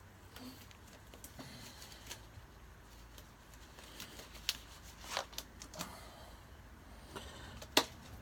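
Handling noise: scattered light clicks, taps and rustles of small objects being moved about, with one sharper click near the end.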